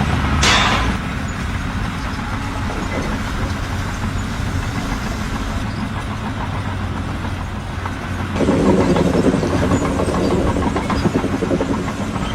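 A heavy engine running steadily, with a short loud burst of noise about half a second in; it grows louder and rougher from about eight seconds in.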